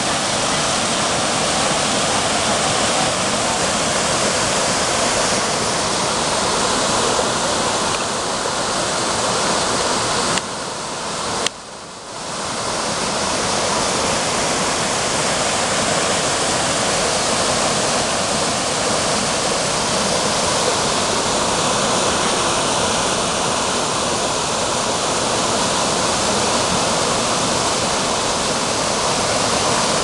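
Waterfall pouring over boulders into a rock pool: a steady, loud rush of falling water. About ten seconds in it briefly drops quieter for a second or so, with a click.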